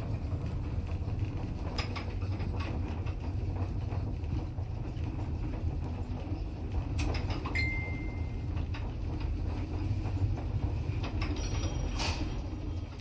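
1977 Zremb sliding-door passenger lift car travelling upward: a steady low rumble with scattered clicks, and a brief high whistle about two-thirds of the way through. The running noise falls away near the end as the car reaches the top floor.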